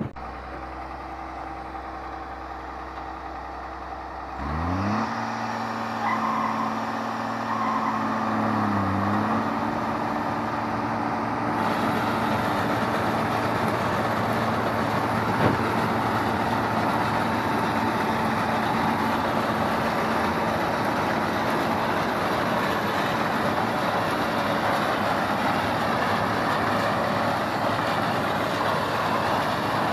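Claas Mercator 75 combine harvester: the engine runs low, then about four seconds in revs up to working speed. The broad, steady noise of the threshing machinery builds over the next several seconds and keeps running evenly.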